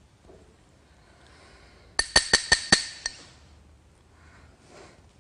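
A drinking glass tapped with a utensil about six times in quick succession, each strike ringing: the call for the room's attention before a toast and a speech.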